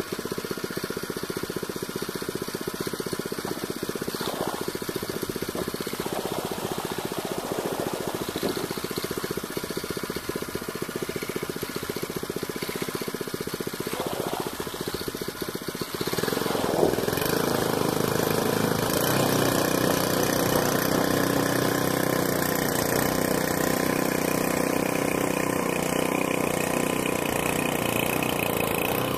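A 99cc Predator single-cylinder four-stroke engine on a longtail mud motor runs at idle, then is throttled up about halfway through and keeps running steadily louder as it drives the kayak forward.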